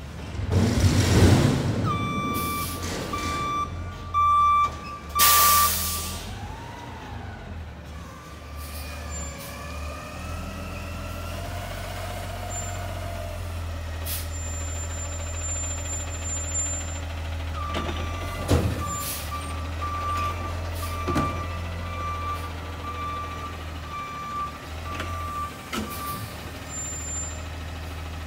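CNG Peterbilt 520 front-loader garbage truck running, its reverse alarm beeping for a few seconds early on and again through the latter part. Two sharp air-brake hisses come about five seconds in, and the engine note rises and falls in the middle.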